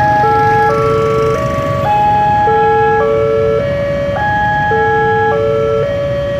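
Indonesian railway level-crossing alarm sounding through a loudspeaker: a repeating melody of electronic tones that steps between several notes and starts over about every two seconds, with a low rumble underneath.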